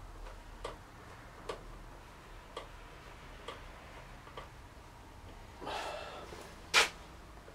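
Light metallic ticks about once a second from hand work at a motorcycle's rear wheel hub, then a short scraping rustle and one sharp metallic clack near the end.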